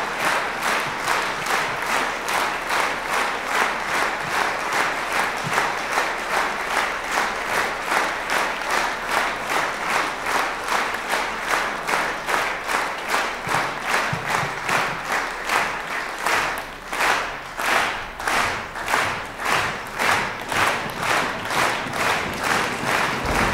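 A large concert-hall audience clapping in unison at about two claps a second, calling the performers back on stage. About two-thirds of the way through, the beat briefly falls apart, then the rhythm picks up again.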